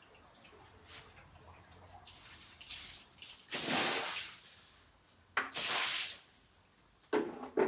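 Water running in short spurts, like a kitchen tap turned on and off: two spurts about three and a half and five and a half seconds in, and a third starting near the end, with faint dripping before them.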